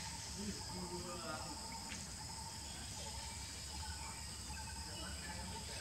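A steady, shrill insect chorus in two high unchanging bands, over a low rumble.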